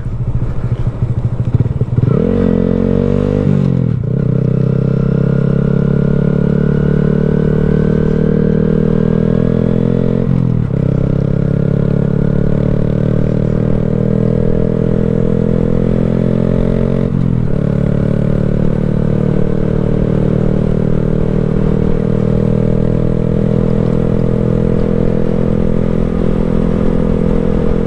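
A 2020 Honda Grom's 125 cc single-cylinder engine pulls up through the gears under way. The revs climb about two seconds in, and the bike upshifts about four, ten and seventeen seconds in, each shift a short break and a drop in pitch. Between shifts the pitch slowly rises, and after the last shift the engine settles into a steady cruise.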